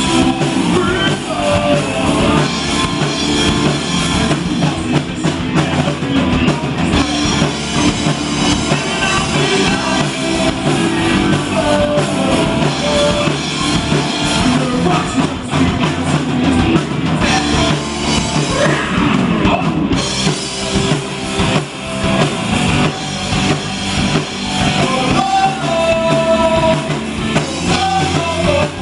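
Live rock band playing a song: drum kit and amplified instruments, with a lead vocal singing over them.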